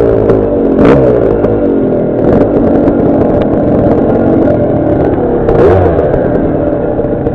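Dirt bike engine running and revving up and down, with a few sharp knocks and clatter from the bike over rough ground.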